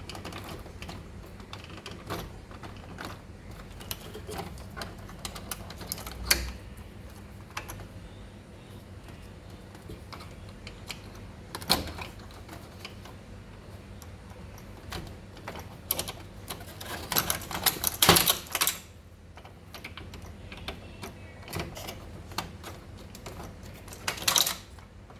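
Plastic wire-harness connectors being handled and pushed into the sockets of a washing machine's electronic control board: scattered clicks and knocks, with denser bursts of clicking about two-thirds of the way through and again near the end.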